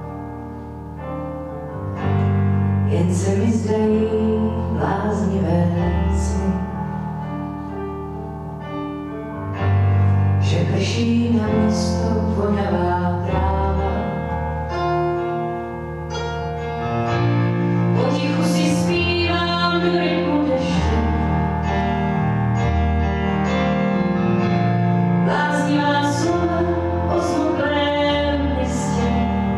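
Live performance of a slow song: a woman sings into a microphone in phrases, accompanied by a keyboard piano and an acoustic guitar.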